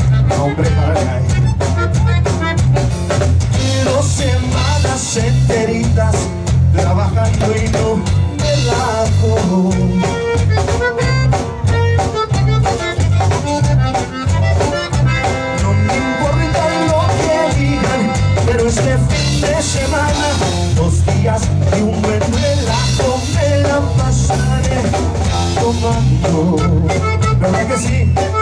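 Conjunto band playing: accordion leading over a steady drum beat.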